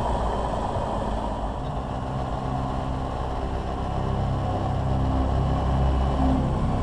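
Single-engine light aircraft's piston engine and propeller running at low power while taxiing over grass, a steady low drone.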